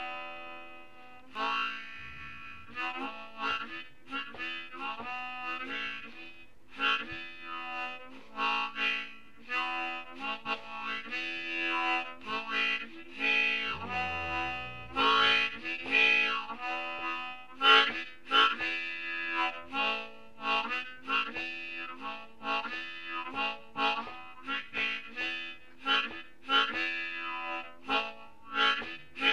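Harmonica improvising a line of many short notes, bent in pitch with a shaking vibration-bend technique.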